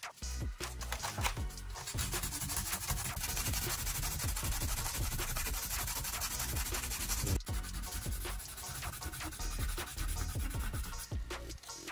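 Sandpaper rubbed by hand in rapid back-and-forth strokes over a white plastic panel, smoothing down a plastic-weld repair patch.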